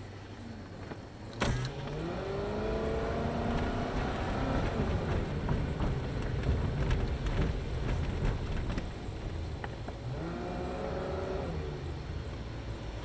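Car engine accelerating from a stop, heard from inside the cabin: a sharp click about a second in, then the engine note rises as the car pulls away, settles, and rises briefly again near the end.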